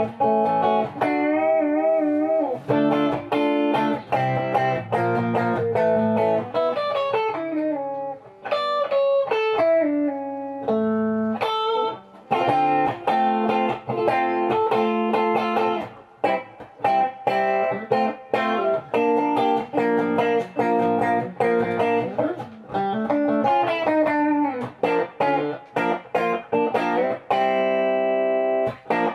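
Electric guitar, a Vintage-brand Telecaster-style guitar played through an amplifier: a lead line of picked single notes and double-stops, with wide vibrato on held notes about a second in and bent or sliding notes around eight to ten seconds in.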